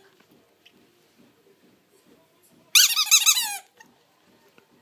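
Rubber squeaky dog toy squeezed by a dog's bite, giving a quick run of high, wavering squeaks that lasts about a second, a little under three seconds in.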